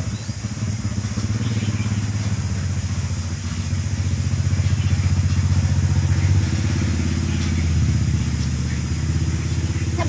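An engine running steadily with a low, even hum, getting a little louder about four seconds in.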